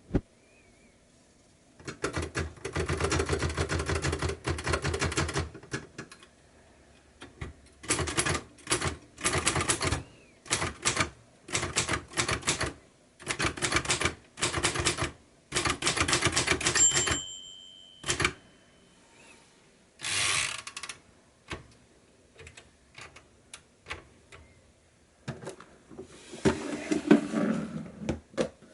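Royal Futura 800 manual typewriter being typed on in quick runs of key strikes, separated by short pauses. About two-thirds of the way through, a bell rings once and fades. Near the end comes a longer, lower clatter.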